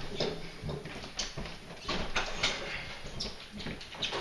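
Irregular light knocks and scuffs as a refrigerator is shifted and settled into place.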